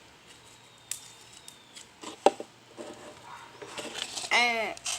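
Homemade slime being handled and kneaded by hand: scattered small clicks and soft squishy smacks, the sharpest about two seconds in. Near the end comes one short pitched vocal sound that rises and falls.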